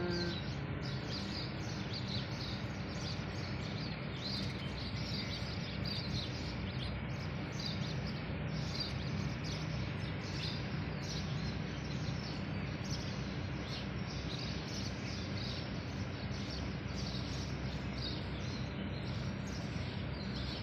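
Many small birds chirping continuously, several short calls a second, over a steady low hum.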